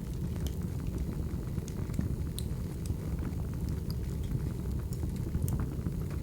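Crackling wood fire: a steady low rumble of flames with irregular sharp crackles and pops.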